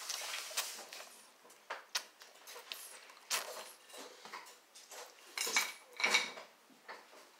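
Small plastic toy being handled: scattered short clicks, knocks and rustles, the loudest two about five and a half and six seconds in.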